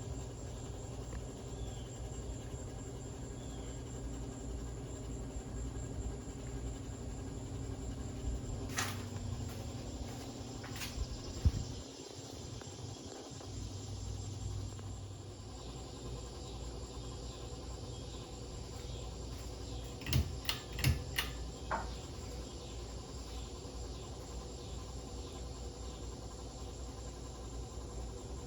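Harbor Breeze Lakeside II ceiling fan running slowly on a failing capacitor: a steady low motor hum with a thin, high, steady tone over it. A few sharp clicks come near the middle and again about two-thirds through.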